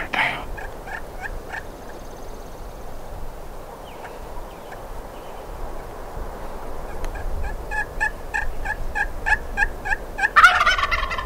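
A wild Merriam's turkey gobbler gobbles, answered by a series of hen yelps from a hunter's turkey call, the short notes evenly spaced at about two to three a second. The calling mimics a hen answering the gobbler directly to draw him in. Near the end the gobbler gobbles again, the loudest sound, over the last yelps.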